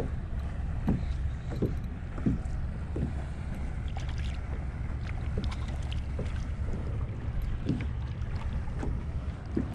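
Water lapping against the hull of a fishing kayak, with irregular short slaps over a steady low rumble.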